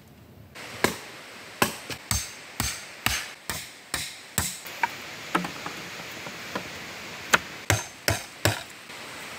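Machete chopping wood and bamboo: a run of sharp strokes about two a second, a gap around the middle, then a few more strokes near the end.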